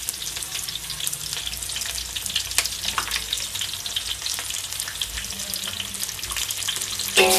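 Peanuts frying in hot oil in a pan: a steady crackling sizzle of many fine pops.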